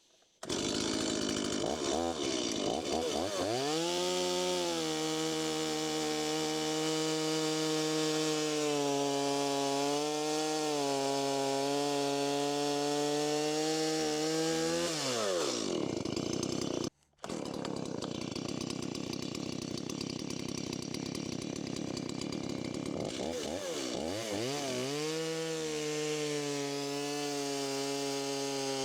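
Chainsaw revving up and running at high speed through a cut in a timber beam, its pitch dipping slightly under load; it drops back about 15 seconds in, then, after a brief break, revs up again for another cut near the end.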